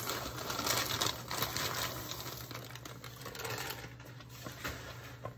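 Frozen peas poured from a plastic bag into a pot: a dense, rapid pattering of small hard peas with the bag rustling, thinning out after about two seconds.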